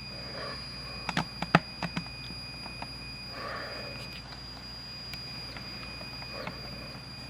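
Pioneer CT-W840R cassette deck mechanism running with a steady high-pitched squeal, which the owner suspects is a belt. About a second in comes a quick run of sharp mechanical clicks.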